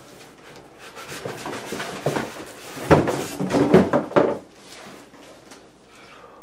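Cardboard and packing rubbing and scraping as a boxed iMac is handled and pulled out of its box, with a cluster of louder squeaky rubs around the middle, then quieter handling.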